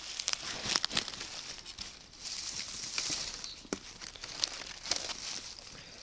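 Dry pine needles and fallen twigs crunching and crackling as a person moves through the forest litter, with scattered sharp snaps of small sticks and a brief rustle partway through.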